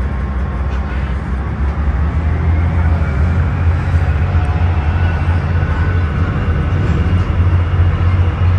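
Low, steady engine rumble that grows louder about two seconds in.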